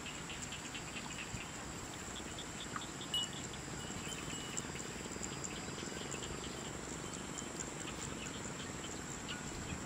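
Outdoor insect chorus: a steady high-pitched drone with scattered short chirps throughout.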